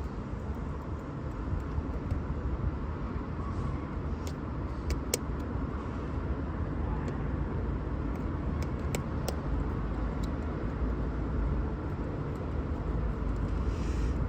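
Steady low rumble of background noise, with a few sharp small clicks around five seconds in and again around nine seconds in, from small tools working on the phone.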